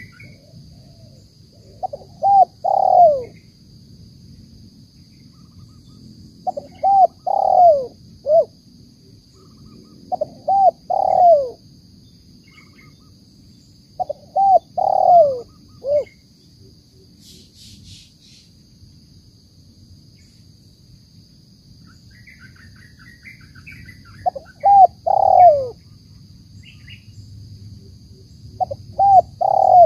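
Spotted dove cooing: about six phrases of three or four short, downward-bending coos, several seconds apart, each ending on a clipped last note. This is the call that Indonesian dove keepers call 'banggo bocor'.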